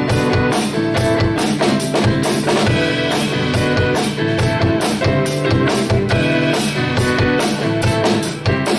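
Instrumental break of a rock song: drum kit keeping a steady beat with electric guitar and bass, no vocals.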